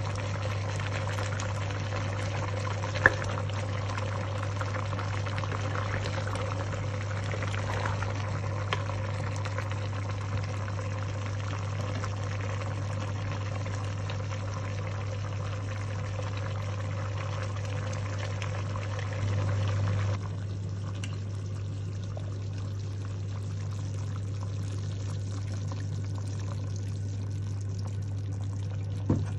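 A pot of chicken boiling on the stove, with a steady bubbling hiss over a constant low hum. The bubbling thins out about two-thirds of the way through. There is a sharp click about three seconds in and another near the end.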